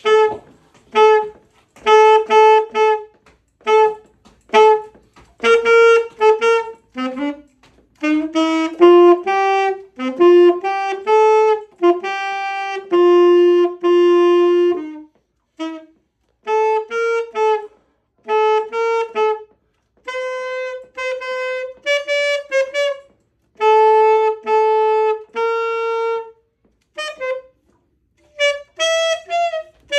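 Alto saxophone played solo: a melody of short, separate notes and phrases with brief rests between them, and a run of longer, joined-up notes held near the middle.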